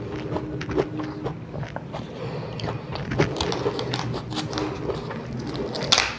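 Small kitchen knife paring the skin off a large, firm ambarella (kedondong), a run of irregular crisp cutting and scraping clicks, mixed with the crunchy chewing of a mouthful of the fruit. A sharper, louder crack near the end as a strip of peel comes away.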